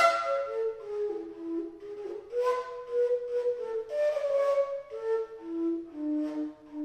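Fujara, the long Slovak overtone flute, playing a slow folk melody in held and sliding notes with a breathy tone, opening with a sharp, loud breathy burst.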